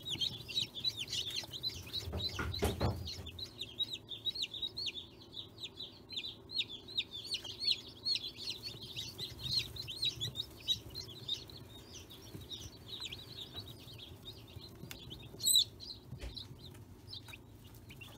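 Newly hatched chicks in a brooder peeping continuously, many high chirps overlapping, with one louder, sharper peep near the end. A brief low rumble about two and a half seconds in.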